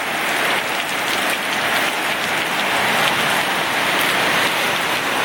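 Heavy tropical-storm rain driving down in strong wind: a steady, dense hiss of falling water with a fine spatter of drops.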